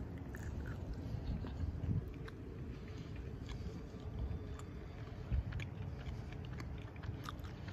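A person chewing a mouthful of tender curried opossum meat, with small wet clicks from the mouth scattered throughout over a steady low rumble.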